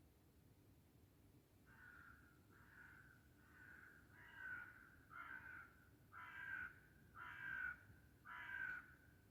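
A crow cawing about eight times in a steady series, about one call a second, faint at first and louder toward the end.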